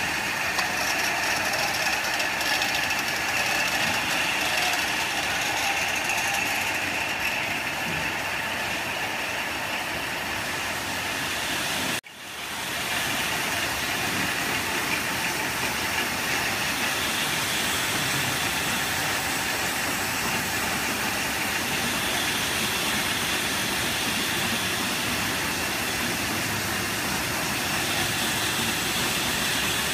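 Bottling and canning line running: conveyors and filling machinery making a steady, even mechanical noise. The sound drops out briefly about twelve seconds in and then returns.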